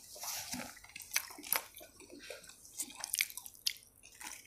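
A person chewing a mouthful of soft flatbread (paratha) close to the microphone, giving quiet wet mouth clicks and sticky chewing sounds at irregular moments.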